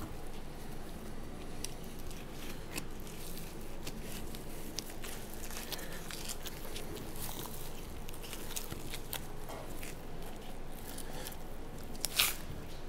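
Knife slicing firm fat off the backs of beef rib bones, giving scattered small crunching clicks, with a sharper click near the end. The fat is firm because the carcass has hung two weeks to dry-age.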